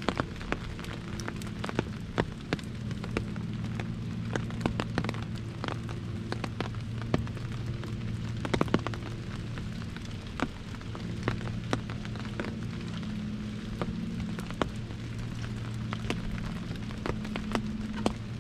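Rain drumming on an umbrella overhead: a steady patter with many irregular, sharper drop taps, over a low steady hum.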